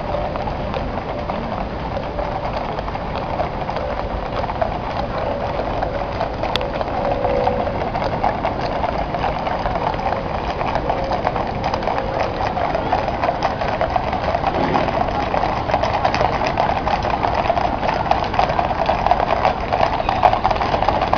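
Many cavalry horses' shod hooves clip-clopping on a tarmac road at a walk, a dense, irregular clatter that grows louder as the mounted column comes closer.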